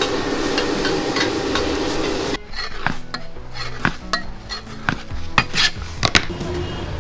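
Food frying in a wok over a high flame: a loud, dense sizzle with the small clicks of a metal spatula against the wok, cutting off suddenly about two seconds in. Then a cleaver slicing through a log of pastry dough on a steel table, several sharp knocks a second or so apart.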